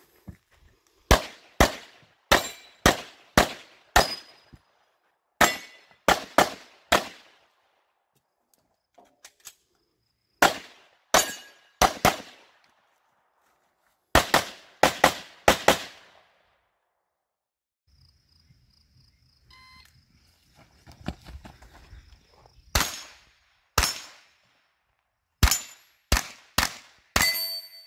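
Rapid strings of gunshots, fired in bursts of two to five with pauses between them. Steel targets ring with a high, steady tone after some hits. The shots near the end come from a pistol-caliber carbine.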